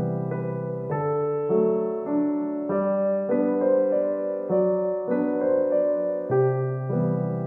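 Background instrumental music, a melody of evenly paced notes changing about twice a second.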